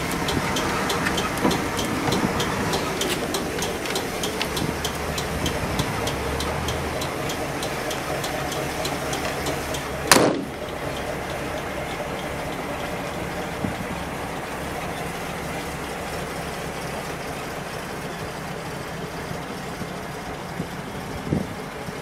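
PAZ-32053 bus's 4.7-litre carburettor V8 petrol engine idling steadily, with the hazard-light flasher ticking evenly over it. About ten seconds in comes a single sharp bang. After it the idle goes on slightly quieter and without the ticking.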